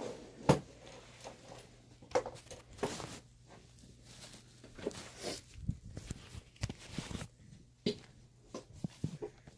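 Scattered knocks, thumps and rustles of things being handled and moved about, with a sharp knock about half a second in.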